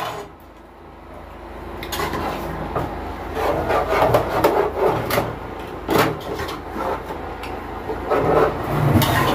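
Wooden spoon scraping and rubbing in a pot of ogbono soup. The rough scraping starts about a second and a half in and carries on, with a few short knocks.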